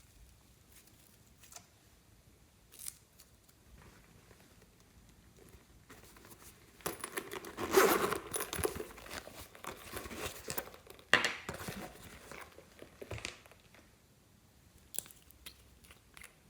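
Crackling, crinkling handling noise from working slime by hand, loudest for several seconds in the middle, with a sharp click partway through and scattered light ticks before and after.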